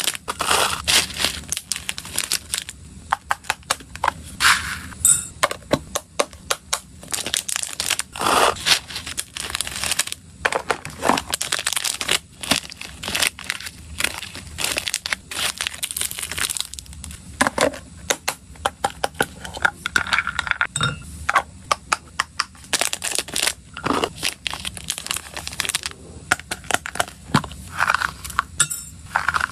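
Small plastic snack packets crinkling and tearing open, with dry hamster food pellets, freeze-dried yogurt cubes and fine seed granules pouring and clicking into a clear plastic box. A dense run of sharp crackles and clicks.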